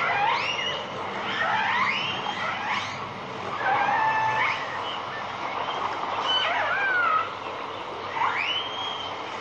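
Recorded whale and killer whale calls: a string of whistles and squeals that sweep up and down in pitch, one every second or two, over a steady hiss.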